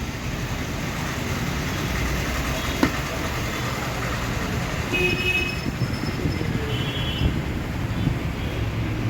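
Steady vehicle and street traffic noise, with a few brief high-pitched tones partway through.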